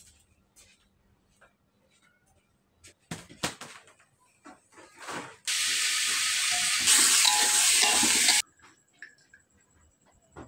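A steady hiss lasting about three seconds, louder partway through and cutting off suddenly. Before it come a knock and some light clatter of handling.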